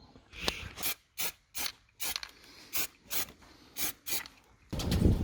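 A series of short rasping rubbing strokes by hand, about two a second, like sanding or scuffing a surface. Music comes in near the end.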